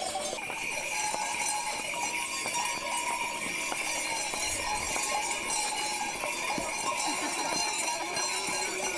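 Many small bells on the harnesses of a procession of decorated horses jingling continuously, the 'chagu-chagu' sound. The dry clop of horseshoes on the paved road is mixed in.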